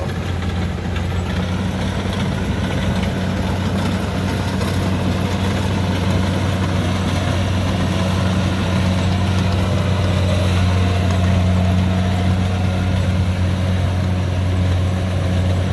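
Kubota DC70 rice combine harvester's diesel engine running steadily: a constant low hum under a wash of machine noise.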